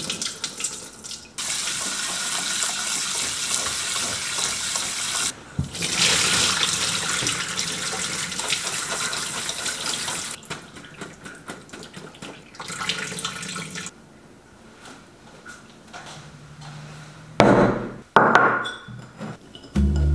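A kitchen faucet's pull-down sprayer runs water over cubed radish in a mesh strainer in a stainless steel sink, rinsing the salted radish. The water runs in two long stretches with a brief break between them, then gives way to softer handling noises and a few knocks near the end.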